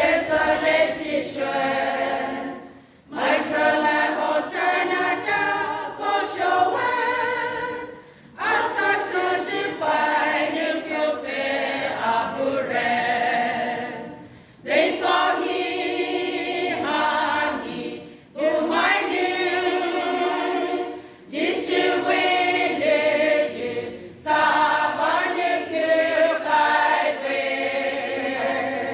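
Women's choir singing a hymn unaccompanied, in phrases broken by short breaths every few seconds.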